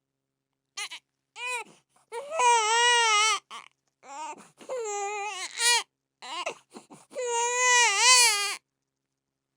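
A baby crying: a string of wailing cries at a high, wavering pitch, some brief and some over a second long, with short silent gaps between them.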